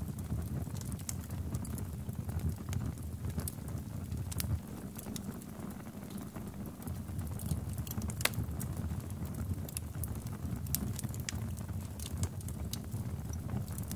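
Burning plastic of a small fan crackling, with scattered sharp pops, over a steady low rumble of flames.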